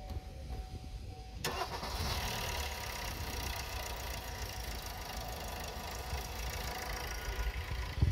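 Opel Astra J's 1.3 CDTI (A13DTE) four-cylinder turbodiesel starting about a second and a half in, then settling into a steady idle.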